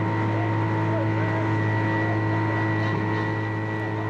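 A steady low mechanical drone with several unchanging tones over it, and faint distant voices about a second in.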